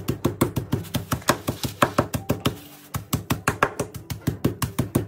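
Metal meat mallet pounding a pork cutlet flat through a plastic bag on the countertop: quick repeated strikes, about six a second, with a brief pause a little past halfway. Background music plays underneath.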